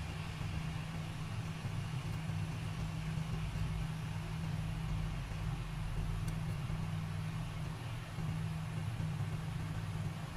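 Steady low hum with an even hiss over it, unchanged throughout, with one faint click about six seconds in.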